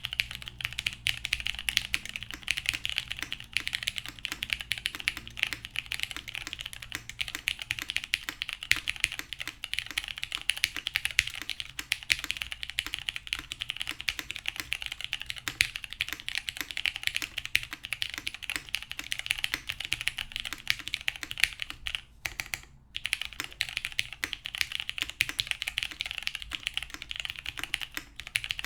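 Continuous fast typing on a custom mechanical keyboard with lubed vintage Cherry MX Brown tactile switches on a polycarbonate plate, with GMK keycaps and no case foam: a dense stream of key clacks. There is a brief pause about three quarters of the way through.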